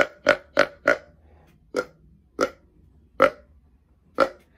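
Flextone Headhunter Extractor grunt-tube deer call blown on its buck setting: a string of short aggressive buck grunts. It starts with a quick run of four grunts about a third of a second apart, then four more spaced out, roughly one every second.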